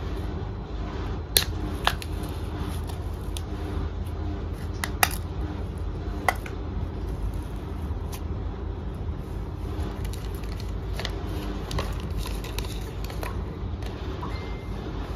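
Hands working the lid of a small metal tin, giving several sharp clicks and taps over the first six seconds or so, then lighter handling ticks. A steady low hum runs underneath throughout.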